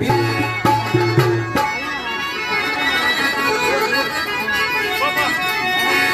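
Devotional bhajan music: a harmonium holds sustained chords while a dholak barrel drum beats, its strokes sharpest in the first second and a half.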